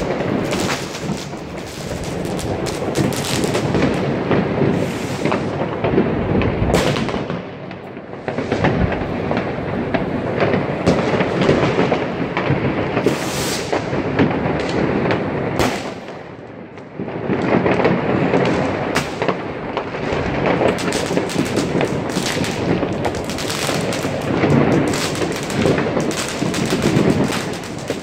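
New Year's Eve fireworks and firecrackers going off all around: a dense, continuous crackle of bangs and reports, with a short lull just past halfway.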